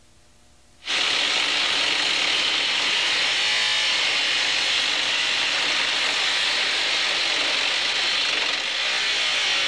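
Handheld abrasive grinder cutting into metal and throwing sparks: it bites in about a second in, then grinds steadily and high-pitched without a break.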